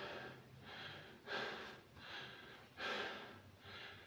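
A man breathing heavily in and out, several audible breaths about a second apart, as after exertion during weight training.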